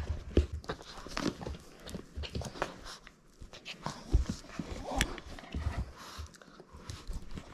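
Boston terrier playing with a plush toy: quick taps and thumps from its paws and the scuffle, mixed with short dog sounds.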